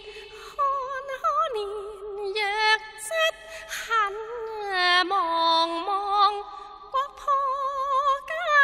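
A woman singing Cantonese opera: a high, slow, ornamented line with wavy vibrato on held notes and slides between pitches.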